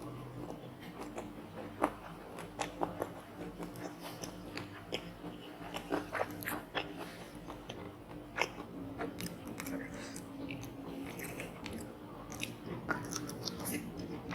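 Close-miked eating: crunching bites and chewing of battered fried squid, with many sharp crackles scattered irregularly throughout.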